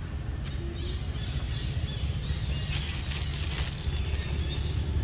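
Outdoor ambience: a steady low rumble with faint, short, high bird chirps in the middle.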